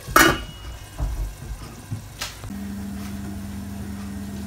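Stainless-steel lid set down on a steel pan with a short metallic clank, then a single click a little after two seconds in, followed by a steady low hum.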